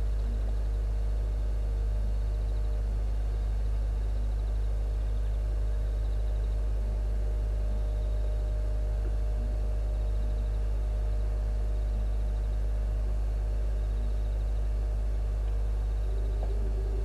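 A steady low hum with no distinct calls or knocks over it.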